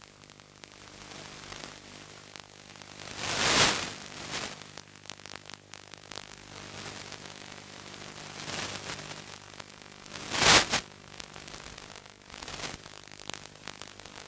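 Static hiss from an analog 5.8 GHz FPV video link, with a faint steady hum under it and loud surges of noise about three and a half and ten and a half seconds in, typical of a weakening radio signal.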